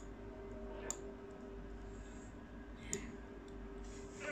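Three sharp clicks, the first at the start, one about a second in and one about three seconds in, over a faint steady hum.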